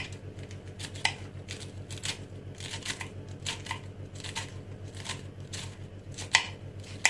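Knife shredding white cabbage finely on a wooden cutting board: irregular crisp cuts, two or three a second, each ending in a tap on the board, the loudest about six seconds in. A steady low hum runs underneath.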